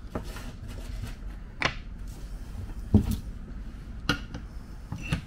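Plywood frame pieces and a claw hammer being handled on a wooden workbench: several separate knocks and clicks, the loudest a dull thump about three seconds in.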